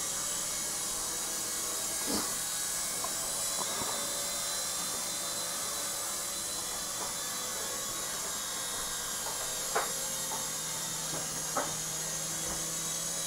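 Syma S111G micro RC helicopter in flight: its small electric motors and spinning rotor blades make a steady high whirring hiss. A few short clicks stand out, about two seconds in and twice near the end.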